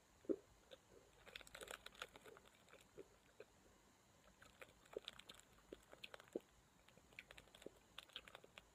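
Faint crunching of a hard, chalky SweeTarts candy being chewed: short, irregular crunches, the loudest shortly after the start.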